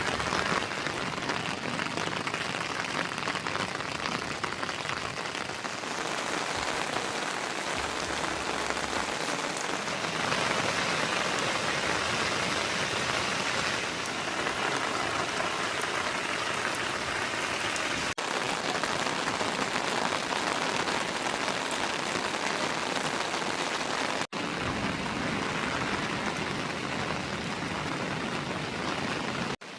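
Heavy rain falling steadily and spattering on surfaces, a dense even hiss, broken twice by an instant of dropout.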